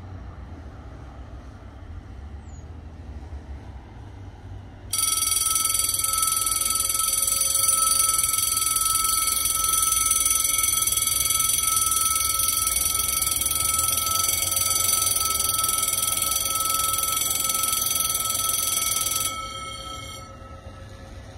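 French level-crossing warning bells start ringing abruptly about five seconds in, a loud, steady, unbroken ring. They stop about fourteen seconds later, once the crossing's barriers are down, leaving low background rumble.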